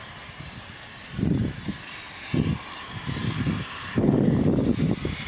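Wind buffeting the microphone in irregular low gusts, strongest from about four seconds in, over a steady rushing hiss.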